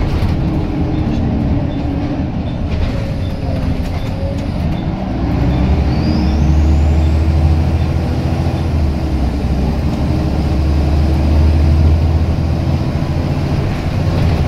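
Scania L94UB Wright Solar bus's diesel engine pulling hard under heavy throttle, heard from inside the passenger saloon. The low engine note grows louder and deeper about five seconds in and holds there, with a faint high whistle rising briefly near the middle.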